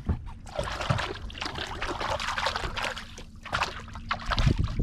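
Sea water splashing and trickling in quick, irregular spurts as a hand is jiggled in the water beside the boat.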